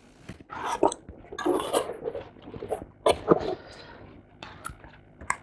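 A cardboard subscription box being opened and the card and papers inside handled: irregular rustles and scrapes, with a sharp tap about three seconds in.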